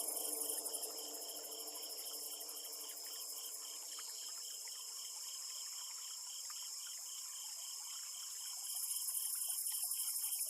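Night insect ambience: crickets chirping in a steady pulse, about three chirps a second, over a constant high insect hiss.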